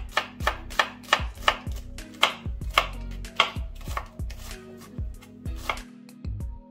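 Kitchen knife chopping a shallot on a wooden cutting board: quick, even strikes of the blade on the wood, about three a second, stopping near the end.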